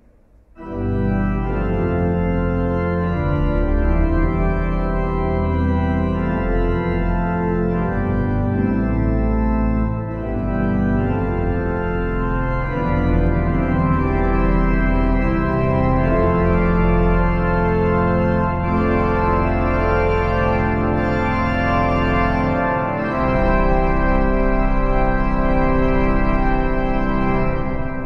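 1912 Harrison & Harrison pipe organ playing loud, sustained chords on full chorus: the great principal chorus with its mixtures, with the full swell reeds coupled through it, over deep pedal bass.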